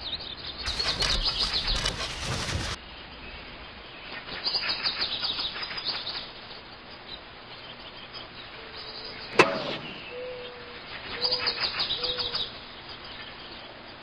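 Birds' wings flapping in three short flurries with high chirps, a few short low coo-like calls, and one sharp click about nine and a half seconds in.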